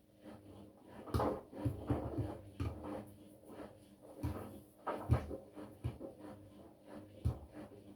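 Front-loading washing machine tumbling a wet wash load: irregular soft thuds and sloshes of laundry and water falling in the turning drum, over a faint steady hum.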